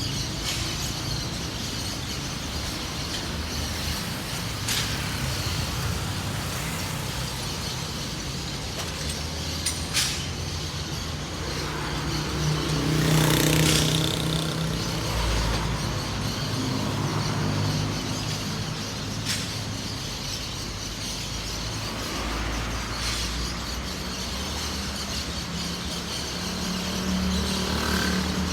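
City road traffic running steadily, with one vehicle passing close and loudest about halfway through.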